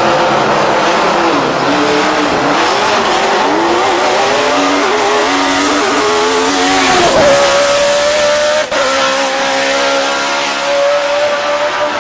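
BMW E36 hillclimb car's Judd racing V8 accelerating hard. The engine note climbs and drops back again and again as it shifts up through the gears, then holds a steady high pitch for the last few seconds as the car pulls away.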